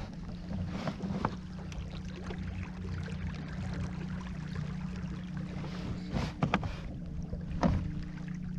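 Motor on a kayak running steadily under way, a constant hum, with a few knocks against the hull about a second in and again near the end.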